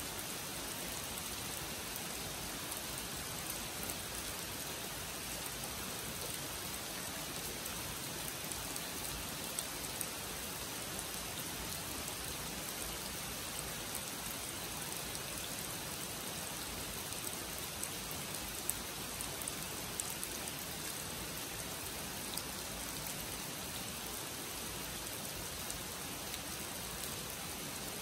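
Steady rain falling on a pond and the surrounding leaves, with a few sharper drops standing out now and then.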